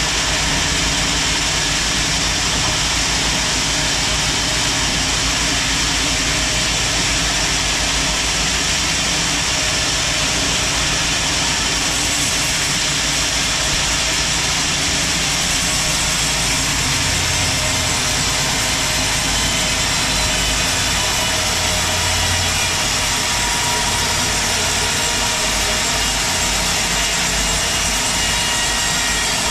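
Sawmill saw running steadily, sawing a large teak log. A faint high whine comes in about halfway through.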